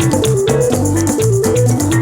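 Instrumental music track: a stepping melodic line over a steady bass part, with shaker-like percussion ticking in an even rhythm.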